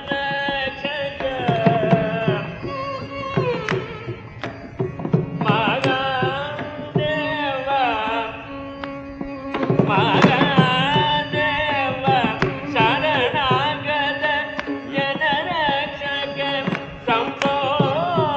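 Carnatic classical music in raga Kamavardhini: a melodic line with wavering, sliding ornaments over a steady drone, accompanied by mridangam strokes.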